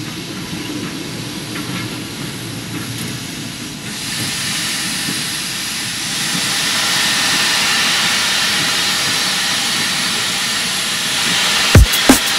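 Sampled steam train hissing over a low rumble, growing louder in two steps about four and six seconds in, in a drum and bass track's intro. Heavy kick drums and the drum and bass beat come in near the end.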